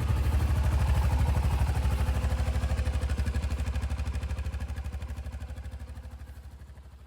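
Honda Pioneer 700's single-cylinder engine idling with a steady, rhythmic exhaust beat, running on a freshly fitted exhaust donut gasket that replaced a blown one. The sound fades gradually over the second half.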